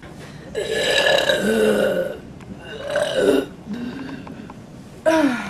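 A woman burping repeatedly: one long burp starting about half a second in, a shorter one around three seconds, a small one near four seconds, and another loud one starting near the end.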